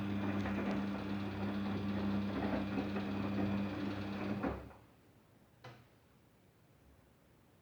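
Daewoo DWD-FT1013 front-loading washing machine running a cotton wash: a steady motor hum as the drum turns, with a busy rattle over it. The motor stops abruptly about four and a half seconds in, and a single short click follows about a second later.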